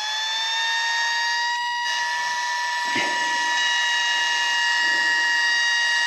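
Flextail Zero mini air pump's small electric motor running with a steady high whine, its pitch just levelling off after spinning up. One short click about three seconds in.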